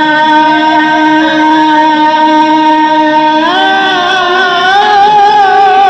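Live Arabic tarab music: one long held note, steady for about three and a half seconds, then sliding up to a higher note that wavers.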